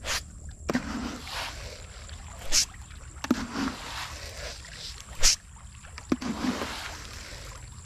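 Handfuls of tilapia feed pellets thrown out over a fishpond, three throws about two and a half seconds apart, each a quick swish followed by the pellets pattering and splashing onto the water surface.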